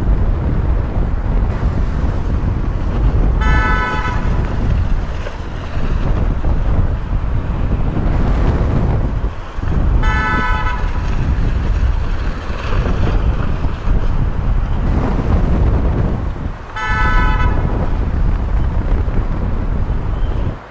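Steady, loud low rumble of a car with a horn sounding three times, each toot about a second long, roughly every six and a half seconds. The whole pattern repeats evenly.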